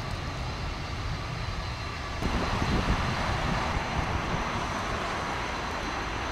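Jet airliners taxiing. First an Airbus A330's engines at taxi thrust with a faint steady high whine over a heavy low rumble, then, after a sudden cut about two seconds in, the louder, fuller engine noise of a four-engined Boeing 747-400 taxiing.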